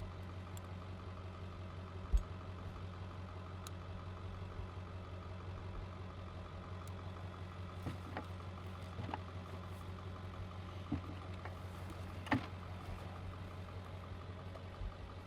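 Vehicle engine running at a steady idle, a constant low hum with a few faint clicks over it.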